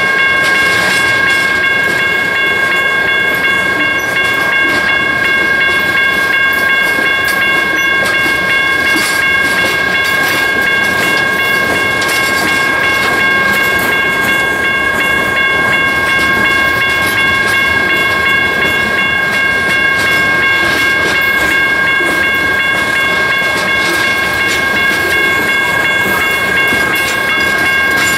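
Open hopper and gondola freight cars rolling past close by: a steady rumble of wheels on rail with faint clicks, over a steady high squeal of several held tones from the wheels on the curving track.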